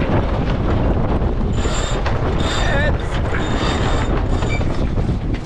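Wind buffeting the microphone over the rush of water along the hull of a J/111 sailboat under way, with a few brief high tones around two and four seconds in.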